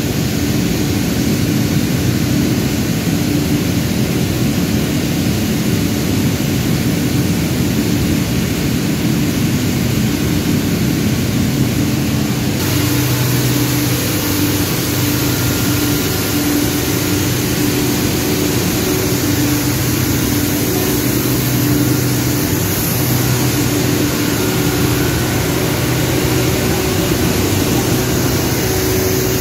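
Rotary screw air compressor and its electric drive motor running: a loud, steady industrial hum with a few constant low tones, whose mix changes slightly about thirteen seconds in.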